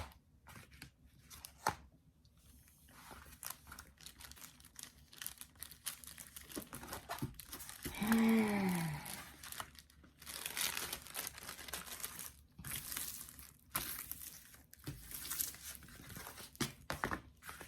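Crinkling and rustling of a diamond painting canvas and its plastic cover being handled, in irregular bursts, with a short falling hum of voice about eight seconds in.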